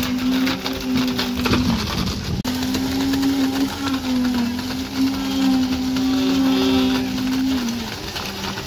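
Concrete pump running while pumping concrete through the hose: a steady droning hum that dips slightly in pitch now and then, with a few clicks and knocks over it.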